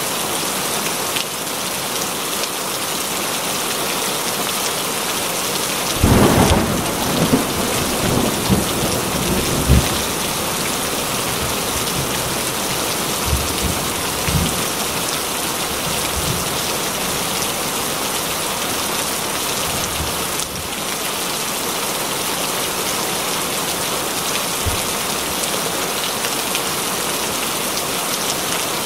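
Steady heavy rain, with a clap of thunder about six seconds in that rumbles on for several seconds, and fainter rumbles of thunder a few seconds later.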